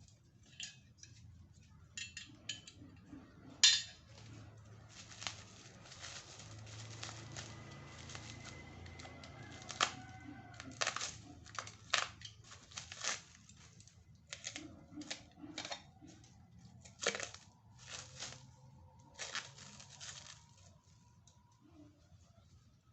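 Plastic packaging crinkling and tearing as it is pulled off, with scattered clicks and knocks of parts being handled. A single sharp knock about four seconds in is the loudest.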